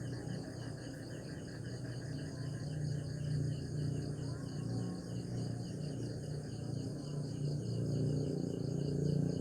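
Night insects, crickets, chirping in a fast, even repeating pulse, over a low steady rumble.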